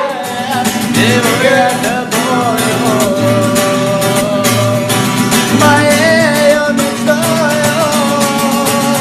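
A song with a sung melody over a strummed guitar in a steady rhythm.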